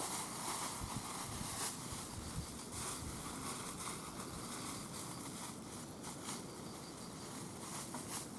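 Outdoor ambience: a steady high hiss with faint insect chirping and a few soft clicks and rustles.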